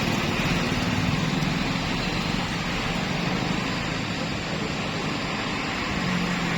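Tour bus engine running steadily, with road and traffic noise around it.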